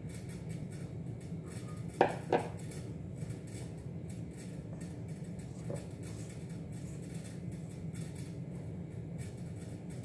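Silicone spatula stirring flour into wet bread dough in a stainless steel bowl, with soft scraping and small clicks against the metal. Two sharp knocks come about two seconds in, and a steady low hum runs underneath.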